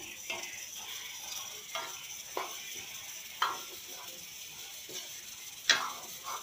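Potatoes sizzling in hot oil in a steel kadai while a spoon stirs them, knocking and scraping against the pan several times, the loudest knock near the end.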